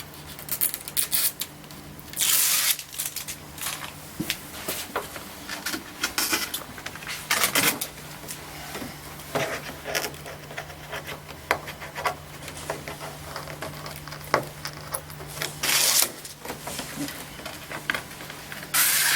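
Backing strips being peeled off double-sided tape on a cardboard display, with cardboard being handled: scattered rustles and clicks and several short, loud ripping hisses. A steady low hum runs underneath.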